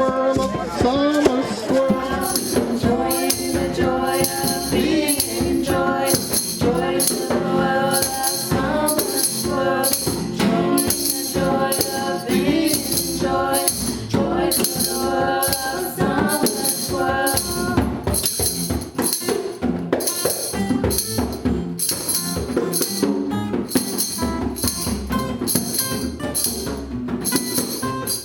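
Upbeat live band music with a steady beat carried by shaken hand percussion, over held melodic notes from the band; no lyrics are heard.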